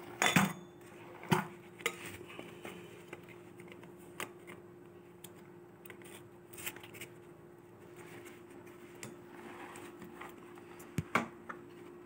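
Scattered clicks and metal clinks of a vacuum cleaner's chrome extension tube and plastic floor nozzle being handled and fitted together, with sharp knocks near the start and near the end, over a faint steady hum.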